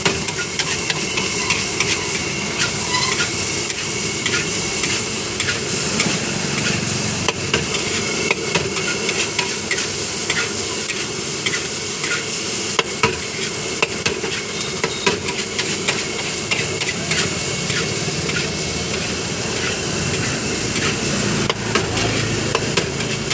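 Fried rice sizzling in a hot wok while a metal spatula stirs and scrapes it, with frequent irregular clinks of metal on metal over a steady hiss.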